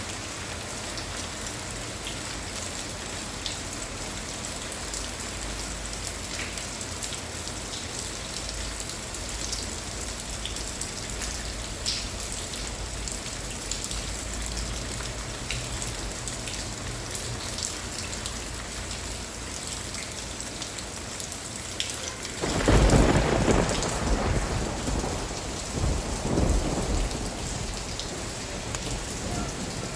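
Steady rainfall with scattered drop ticks, then about three quarters of the way in a loud roll of thunder breaks in and rumbles for several seconds, swelling a second time before fading back under the rain.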